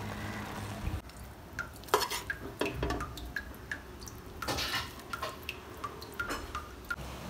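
Serving spoon scraping and tapping against a metal cooking pot as cooked biryani rice is scooped out and dropped onto a plate: a scatter of light clinks and taps.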